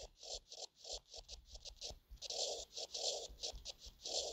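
Stylus writing on a tablet screen: a quick run of short, faint scratching strokes as a line of handwriting goes on.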